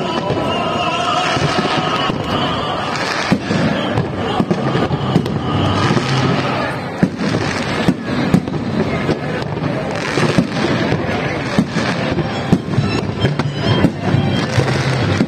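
Fireworks display going off in a dense barrage: a rapid run of bangs and crackling from bursting aerial shells and climbing rockets, with wavering whistles in the first couple of seconds.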